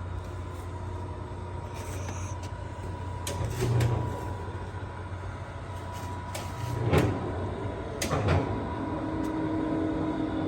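A few heavy clunks, about four, seven and eight seconds in, over a steady low hum with a faint high tone.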